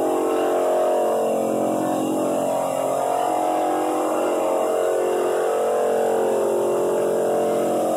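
Floor drum sander running steadily as it sands a hardwood floor, with a Ridgid shop vacuum running alongside to draw off its dust through a cyclone separator. The sound is an even, continuous machine whir made of several steady tones.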